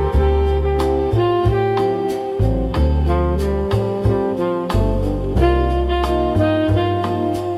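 Jazz music: a saxophone playing a melody over a walking bass and light drums.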